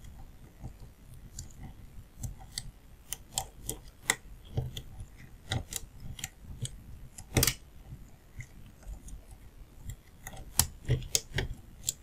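Light metallic clicks and scrapes of a shallow hook pick working the pin stacks of a brass LZ euro-profile lock cylinder held under a tension wrench, the lock being picked open; the clicks come irregularly, one sharper click about seven seconds in.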